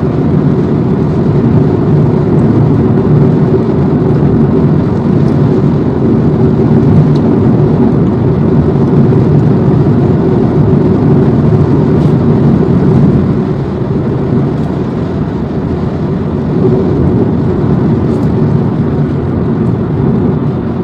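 Steady road and engine noise inside a car's cabin while cruising on a highway. It eases a little about two-thirds of the way through.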